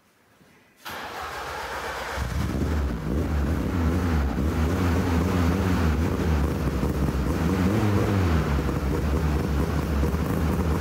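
Car engine running, heard at the exhaust tailpipe while sulfur hexafluoride is fed into its air intake. It starts abruptly about a second in and is at full strength by about two seconds in, with its note wavering up and down. The exhaust note is audibly changed by the heavy gas.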